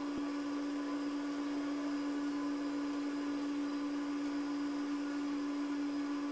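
Steady electric hum from a motor or appliance: one constant low-mid tone over a faint even hiss.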